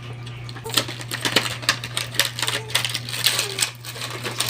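Toy box and its packaging being opened and handled: a rapid, irregular run of clicks and crackles that starts in earnest a little under a second in.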